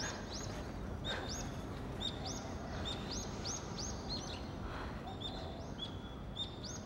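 Birds chirping: short, high, rising chirps repeating about twice a second over a steady low background hiss.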